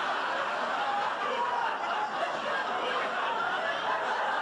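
Sitcom studio audience laughing in one long, even wave, the reaction to a punchline.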